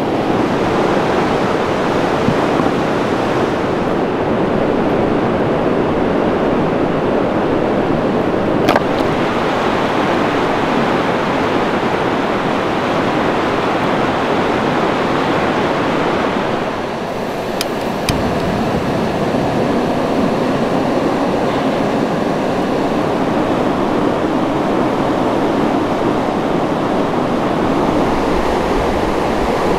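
Loud, steady rushing of water. There is one sharp click about nine seconds in and two more near eighteen seconds.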